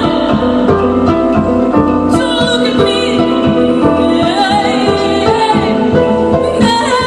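Live electric harp music over a steady electronic beat, with a woman's voice singing a wavering line partway through.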